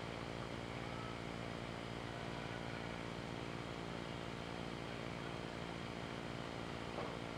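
Steady hiss with a low electrical hum underneath, and no distinct event: the background noise of a home camcorder recording.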